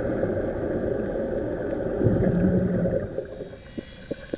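Underwater recording: a steady muffled rumble of water and air bubbling from a sea-walk helmet, dropping quieter about three seconds in, followed by a few sharp clicks.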